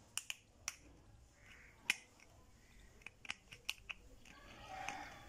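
Faint sharp clicks and ticks of a small screwdriver tip prying a burnt SMD LED chip off an LED bulb's circuit board: a few scattered clicks, the loudest about two seconds in, then a quick run of about five near the end.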